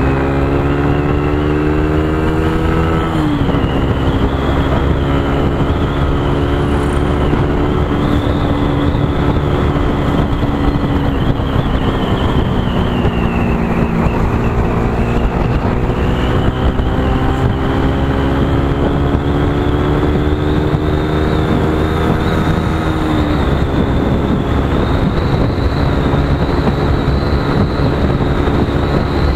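Motorcycle engine running at road speed over heavy wind and road noise. Its pitch climbs slowly and then drops sharply a few times.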